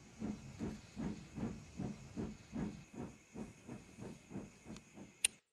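Steam locomotive chuffing steadily at about three chuffs a second over a steady hiss of steam. A single sharp click comes just before the sound cuts off abruptly.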